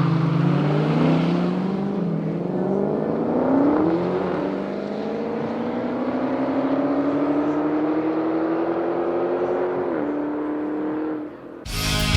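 Car engine under hard acceleration, its pitch climbing slowly and steadily for about ten seconds, dipping briefly near the end before it cuts off abruptly.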